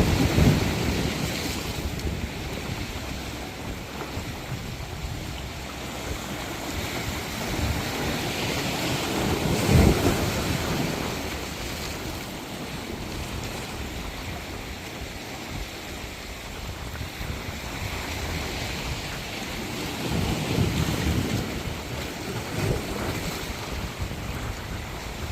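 Waves washing onto a shore, a steady wash of surf with three louder surges as waves break: near the start, about ten seconds in, and around twenty seconds in.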